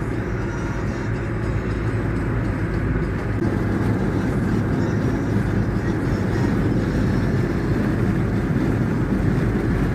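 Bulldozer's diesel engine running steadily, a continuous low drone.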